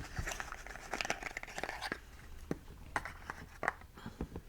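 Faint crinkling and small clicks of spark plug packaging being handled, scattered irregularly.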